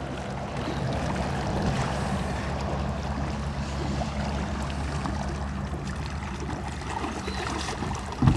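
Steady outdoor noise of river water and wind, with a low steady hum underneath and a single knock near the end.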